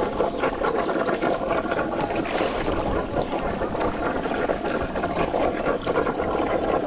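Muddy water sloshing and splashing as fish are scooped by hand and with a plastic basket from a net, with a steady hum underneath.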